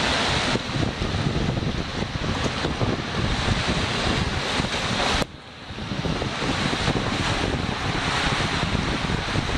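Rushing water and wind on the microphone as a tube rides down a water slide, a steady loud noise. About five seconds in it cuts out suddenly and builds back up over about a second.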